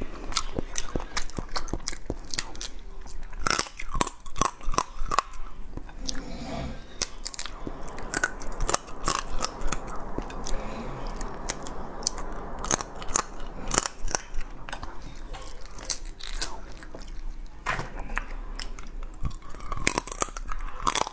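Eating crab close to the microphone: shell cracking and crunching, with chewing and sucking mouth sounds, as meat is picked out of the shell and legs are bitten and sucked. Many sharp, irregular clicks and crackles.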